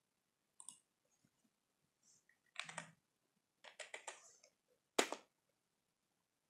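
Faint computer keyboard typing and clicks: a single click about half a second in, then keys tapped in two quick groups as a short word is typed, and one sharper click, the loudest, about five seconds in.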